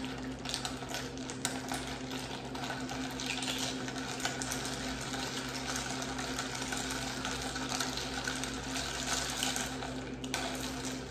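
Spoon stirring iced coffee in a glass mug: ice and spoon clinking against the glass in quick, uneven clicks over the swirl of liquid, stopping near the end.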